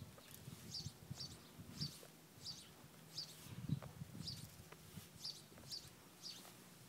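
Small birds chirping in bamboo: a run of short, high chirps repeated about twice a second, faint, over soft low thumps.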